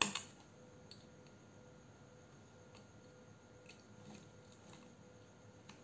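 A sharp click right at the start, then faint clicks and rustling about once a second as hands fit a test wire into the battery slot of a 9.6 V cordless impact driver; the driver's motor does not run. A faint steady hum lies underneath.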